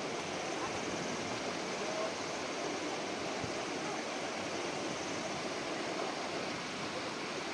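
River water rushing steadily, an even hiss with no breaks.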